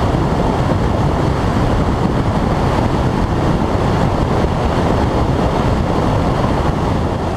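Steady, loud rushing road and wind noise of a moving car, which cuts off at the end.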